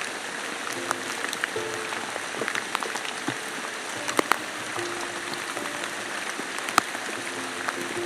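Steady rain hiss with frequent sharp drops landing close by. Short, soft musical notes sound faintly underneath.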